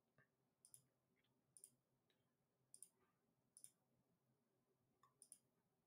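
Faint computer mouse clicks, about five of them, each a quick double tick, over near silence.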